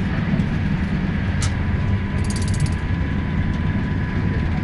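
Rumble of an Intercity Plus railway carriage in motion, heard from inside, with rattling from broken roof panels and loose screws. A few sharp clicks and a brief run of rapid ticking sound over the steady din.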